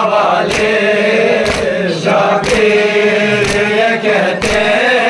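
A group of voices chanting a Kashmiri noha, a Muharram lament, together, with a sharp beat about once a second.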